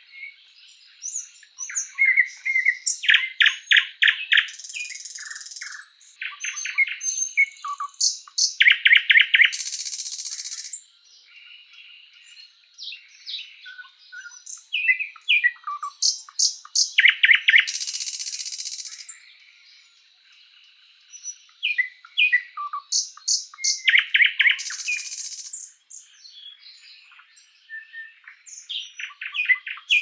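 A thrush nightingale (sprosser) singing loud phrases of rapid repeated notes, four of them ending in a dry, rasping rattle, with short pauses between phrases.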